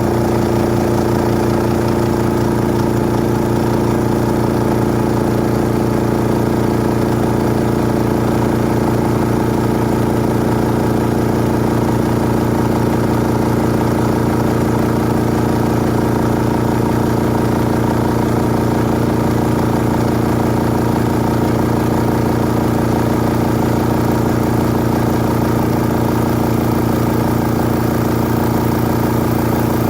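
Old electric air compressor running steadily, its motor and pump giving a constant hum with a fast, even pulsing.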